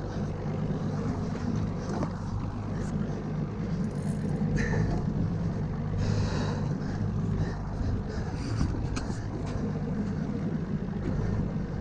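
A boat engine idling steadily with a low hum, under wind and water noise, with a few brief scrapes about halfway through.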